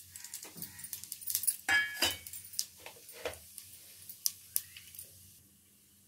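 A steel bowl clinking and tapping against a metal pressure cooker as whole spices are tipped into hot oil: a run of scattered sharp clicks and knocks that dies away near the end.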